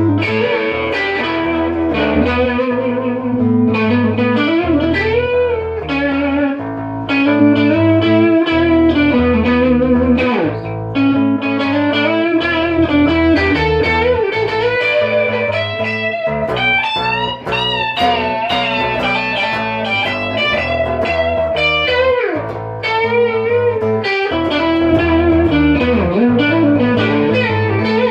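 Instrumental music led by electric guitar: a melodic lead line with notes that bend and waver, over sustained bass notes.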